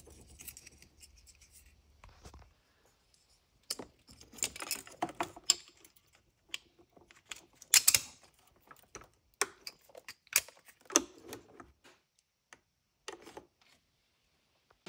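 Scattered clicks and scratches of a 3D-printed plastic bracket and a brass three-way valve being handled and fitted, in short clusters with quiet gaps between them.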